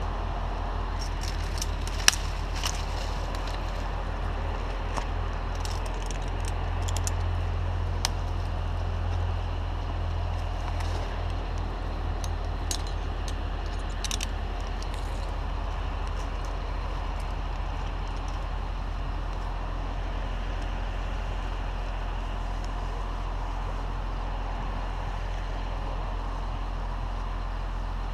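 A large engine running steadily at a low hum, briefly a little louder a few seconds in, with scattered light metallic clicks and rattles over the first half.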